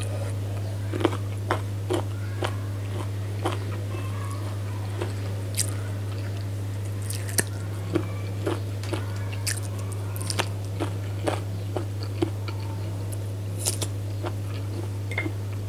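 Close-up eating sounds: a person biting and chewing chicken curry and rice, with irregular short wet clicks and crunches every second or so, over a steady low hum.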